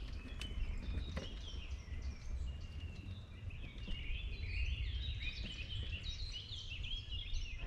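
Small songbirds chirping and twittering, many short high notes overlapping one another, over a low steady rumble.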